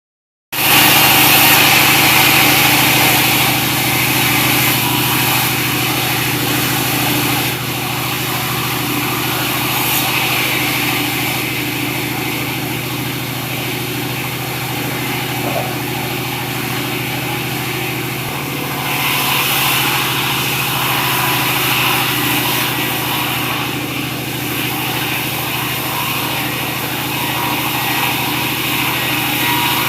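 Engine-driven sawmill saw running steadily while sawing sengon (albasia) timber into rafters. It has a constant machine drone under a brighter hiss that swells near the start and again about two-thirds of the way through.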